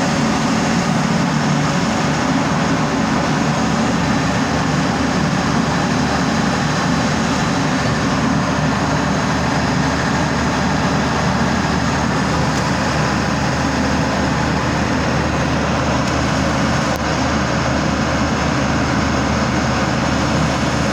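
Deutz TBD616 V12 marine diesel engine running steadily, a loud, even mechanical din with no change in speed.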